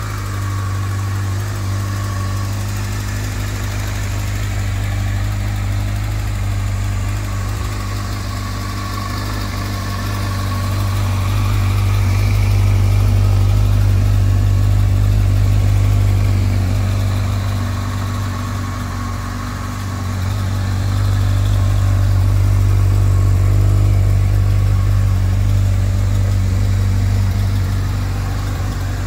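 Honda CBF1000A's inline-four engine idling steadily at an even pitch, its sound swelling a little louder twice, around the middle and again later on.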